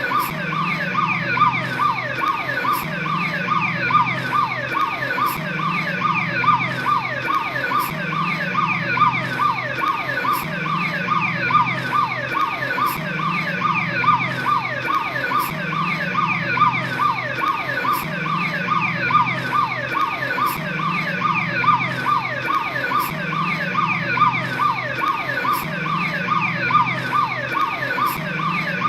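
Police patrol car's electronic siren sounding steadily: a fast warble of quickly falling sweeps repeating several times a second.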